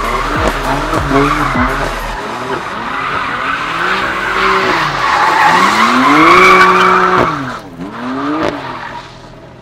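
Sports car spinning donuts: tyres screeching and skidding while the engine revs rise and fall in short blips. Later it climbs and holds high for over a second before dropping off, with one more quick rev near the end.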